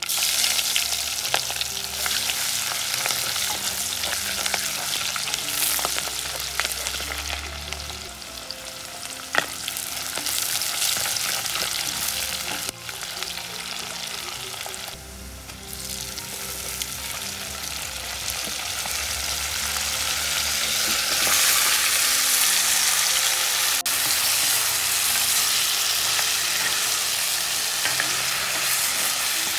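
Onions, green chilies and curry leaves frying in hot oil in a clay pot, a steady sizzle, stirred and scraped with a wooden spoon. The sizzle grows louder about two-thirds of the way through.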